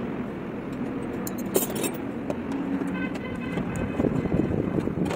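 Hand tools working the rocker-cover bolts on a Bharat Benz truck's diesel engine, with a few light metallic clicks over a steady background rumble. A vehicle horn sounds briefly about three seconds in.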